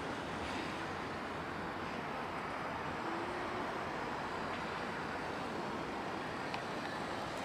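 Boeing 767-300ER's twin jet engines at takeoff thrust as the airliner rotates and climbs away: a steady, even jet noise.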